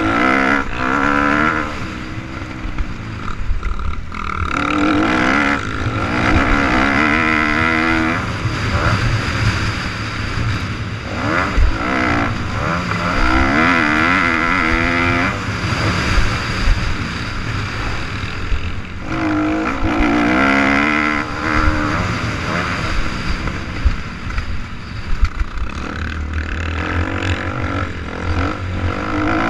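Motocross dirt bike engine heard from the rider's helmet camera, revving up and backing off again and again as the bike is ridden around a dirt track, with wind rush over the microphone.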